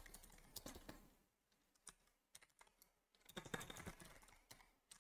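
Faint typing on a computer keyboard: scattered single keystrokes, with a short quick run of keys about three and a half seconds in.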